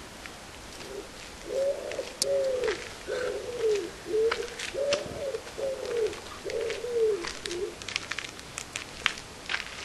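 A bird calling: a run of about eight short notes at one pitch, each rising and then falling, spread over about six seconds.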